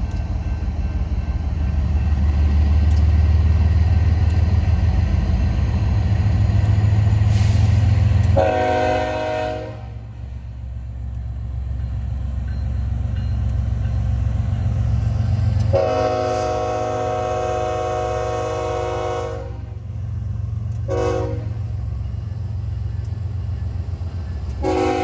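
BNSF diesel freight locomotive passing with a heavy engine rumble that swells over the first eight seconds. Its multi-chime air horn then blows long, long, short, long: the standard grade-crossing signal.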